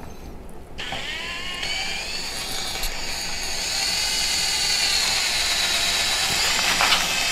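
Cordless drill boring a mounting hole through the Ranger's front bumper. It starts about a second in with a rising motor whine, then holds a steady high whine while the bit cuts, with one short knock near the end.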